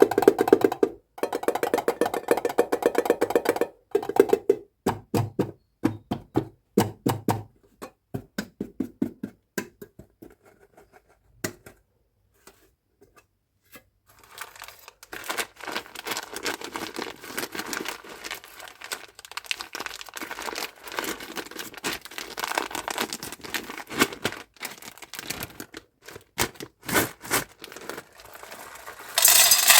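Plastic candy packaging crinkling and tearing as it is opened, with sharp clicks of small hard candies dropping and knocking together. The clicks come in quick runs, then a long stretch of dense crackling, ending in a loud burst.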